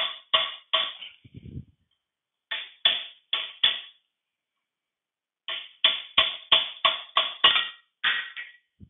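Hammer blows on a chisel driven under the rusted end cap of a 1953 Allis-Chalmers B final drive housing, knocking the cap loose. Sharp ringing metal strikes come in three runs: a few, then four, then about ten at roughly three a second, and the cap is free by the end.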